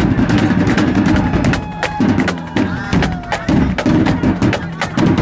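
Drumline playing a fast cadence: rapid, sharp snare and tenor drum hits over bass drum beats.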